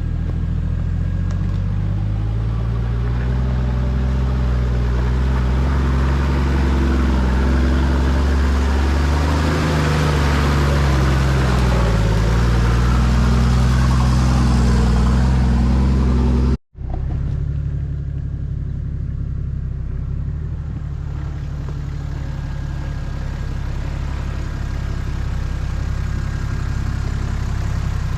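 Four-wheel-drive's six-cylinder diesel engine running at low revs while crawling along a dirt track. Its note rises and falls slowly, with a hiss of tyres and gravel that builds up. The sound breaks off sharply about two-thirds of the way through, then the engine runs on a little quieter and steadier.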